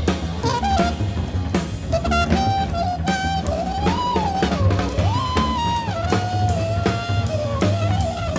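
Avant-garde jazz quartet recording: a drum kit plays busy snare, cymbal and bass-drum strokes under a walking double bass. A single horn plays a line that bends and slides in pitch.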